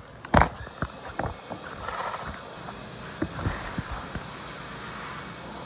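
Electric dog grooming clippers switched on with a sharp click, then running with a steady hiss, with a few handling knocks and clicks over the first few seconds.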